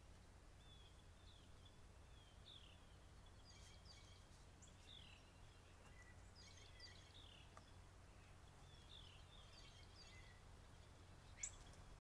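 Faint birdsong: scattered short chirps and downward-slurred calls from several songbirds over a steady low hum. One sharp click near the end.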